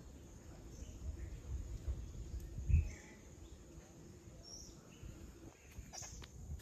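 Outdoor ambience: a faint steady high insect trill with a few scattered bird chirps over a low rumble on the microphone, and a soft bump about three seconds in.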